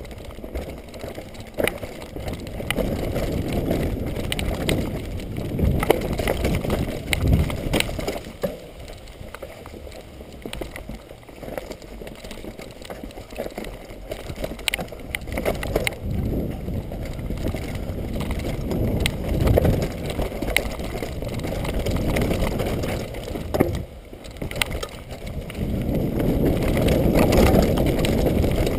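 Mountain bike ridden downhill on a leaf-strewn dirt trail: wind rushing over the camera microphone and tyres rolling over dirt and dry leaves, rising and falling, loudest near the end. Sharp knocks and rattles from the bike come through repeatedly as it goes over bumps.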